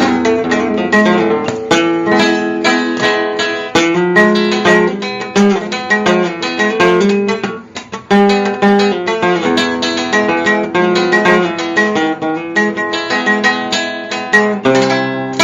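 Solo acoustic guitar playing a fast melody of plucked notes over bass notes, with a short drop in loudness about seven and a half seconds in before the playing resumes.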